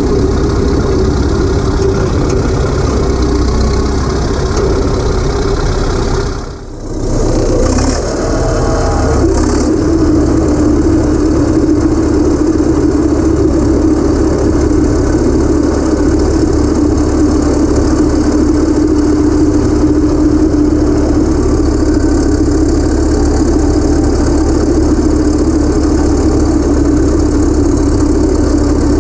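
Caterpillar D7 3T crawler dozer's diesel engine running steadily as the machine travels, with a brief drop in level about six and a half seconds in.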